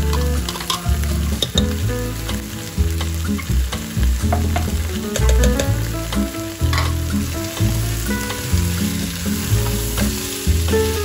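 Chicken pieces sizzling in a pressure cooker pot as chopped onion and garlic drop in and are stirred with a spatula, with scattered knocks and scrapes against the pot. Background music with a bass line plays along.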